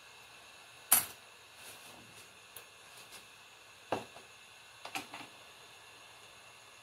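Faint steady hiss of a hot air rework gun blowing, with a few sharp clicks and knocks of small hard objects being handled: the loudest about a second in, another near four seconds and a quick cluster near five seconds.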